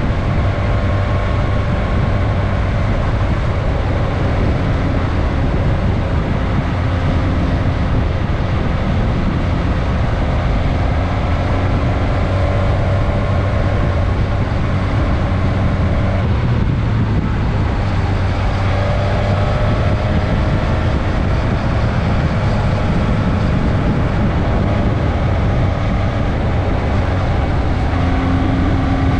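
Suzuki GSX-S 1000S Katana's inline-four engine running steadily under way, heard onboard with heavy wind noise. Its note rises slowly every so often as the bike picks up speed.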